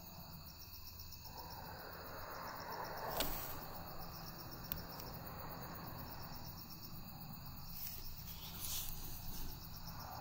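Crickets chirring steadily in the night. Soft rustling runs underneath, with a light click about three seconds in and a fainter one shortly after.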